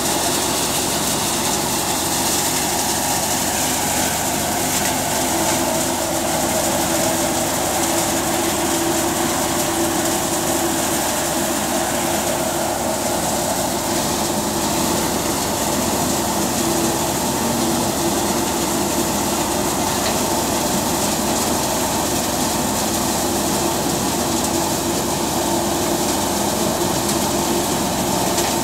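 Tractor-powered threshing machine running steadily under load, driven by a Kubota MU4501 diesel tractor, as dried red gram (pigeon pea) plants are fed into its drum. The sound is a loud, even mechanical drone with a steady hum.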